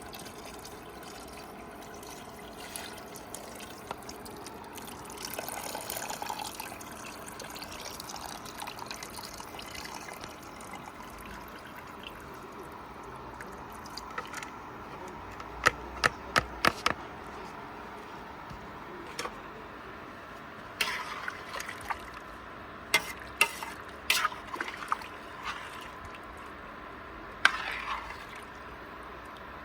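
Kitchen work: a steady low hiss of liquid, with several quick clusters of sharp clinks of utensils against pots or dishes in the second half.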